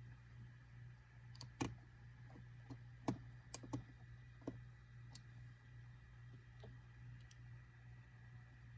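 Faint, irregular clicks of a small precision screwdriver and tiny screws against an iPhone 5c's internal parts as the display cover screws are driven back in, with a few sharper clicks around the middle.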